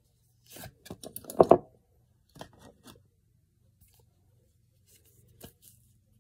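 Handling noise from a cardboard eyeshadow palette being turned over and opened: scattered clicks, rustles and scrapes, loudest in a short burst of scraping about a second and a half in.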